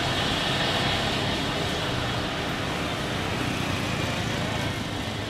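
Jet airliner's engines running at taxi power as the plane rolls along the taxiway: a steady roar with a high whine over it, easing slightly near the end.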